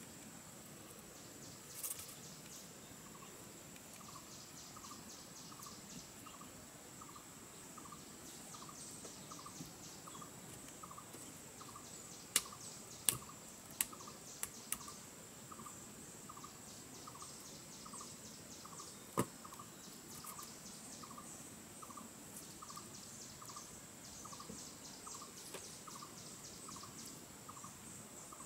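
Forest insects making a steady high buzz and ticking chirps, with a soft chirp repeating a little more than once a second. In the middle come several sharp wooden knocks close together, and one more a few seconds later, as poles are fitted into the shelter's log doorway.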